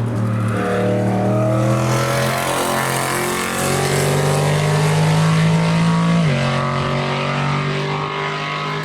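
A car's engine under hard acceleration on the circuit, loud and noisy, its revs climbing for several seconds. About six seconds in it upshifts with a sudden drop in pitch, then pulls on steadily.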